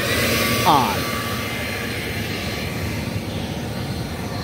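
Corded electric leaf blower starting up, its whine rising as the motor spins up, then running steadily with a loud rush of air.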